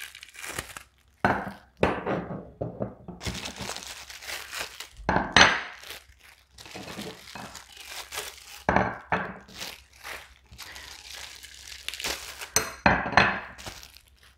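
Plastic wrapping crinkling and tearing as pressure washer wand extension sections are unwrapped, with several sharp knocks of the metal sections being handled.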